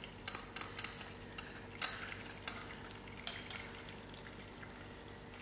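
A metal spoon clinking and scraping against a small glass bowl while flour is spooned out of it: about ten sharp, irregular clinks in the first three and a half seconds.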